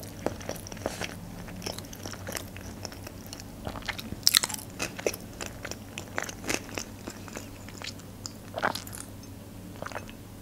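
Close-miked chewing of a large Philadelphia sushi roll: soft, wet mouth clicks and smacks at irregular intervals.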